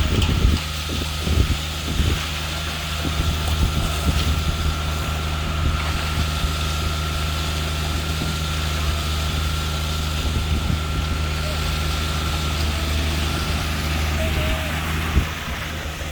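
Heavy diesel truck engine running steadily, with a thin steady whine that stops about thirteen seconds in and a few knocks in the first couple of seconds.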